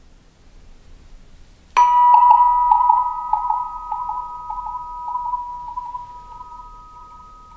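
The resonator of a Cristal Baschet is struck sharply about two seconds in and rings with two close metallic tones. The lower tone pulses about three times a second as the sound slowly dies away.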